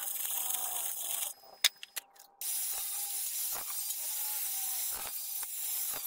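MIG welding on steel, a sizzling crackle for about a second, then a short lull with a few clicks, then steady grinding of steel with an angle grinder.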